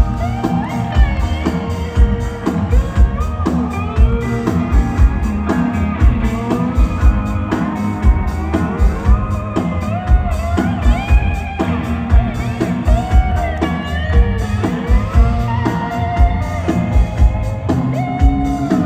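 Live rock band playing an instrumental break: a lead guitar line with bending, sliding notes over a steady drum beat and bass.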